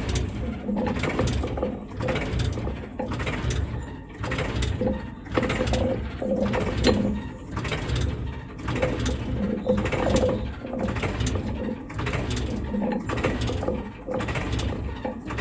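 Battery-powered plastic toy vehicle running: its small motor and gears whir with a pulsing low rumble and frequent clicking.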